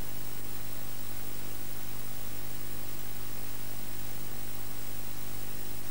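Steady hiss with a low mains hum underneath: the background noise of an old analogue video tape's sound track, with no programme sound on it.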